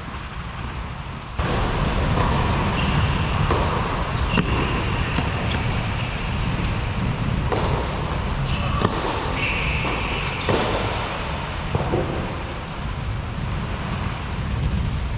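Tennis ball being struck by rackets and bouncing during a rally on an indoor court, heard as short sharp knocks every second or so over a steady low rumble.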